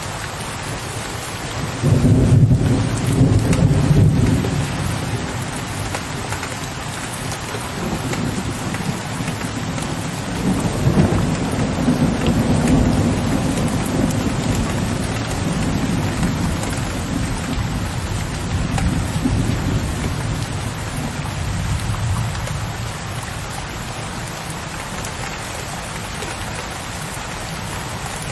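Steady rain with thunder. A sudden deep thunderclap rumbles about two seconds in, and a longer, softer roll of thunder swells and fades through the middle.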